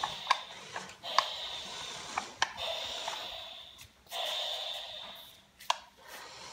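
Small electric gear motor of a remote-control Thomas the Tank Engine toy whirring as it drives, running in spurts of a second or two with short breaks between them, with several sharp clicks.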